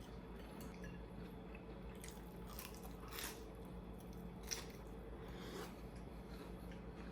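Faint chewing and biting of food, with a few short crunchy clicks, from people eating breaded pork cutlet (donkas).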